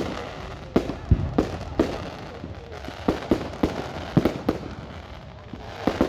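Aerial fireworks bursting: a rapid, irregular string of sharp bangs, about a dozen, with a short lull around the middle, over a crackling background haze.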